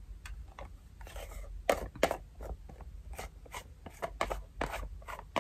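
Plastic lid being fitted and twisted back onto a body-cream tub: an irregular run of short clicks and scrapes.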